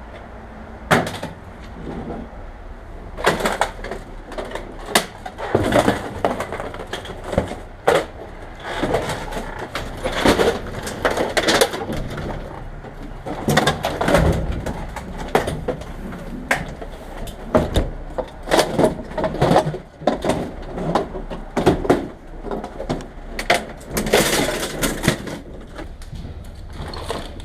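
Irregular knocks, clunks and scraping of discarded junk being moved and shifted about while rummaging through a dumpster, with sharp clatters every second or so.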